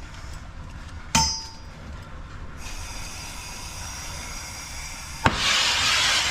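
A single ringing metallic clink about a second in. Then a faint gas hiss from a TurboTorch soldering torch, which lights with a sharp click near the end into a loud, steady flame hiss.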